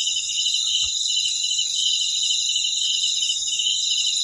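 Dense night chorus of crickets and other insects: a steady high-pitched shrilling, with one of the voices pulsing about three times a second.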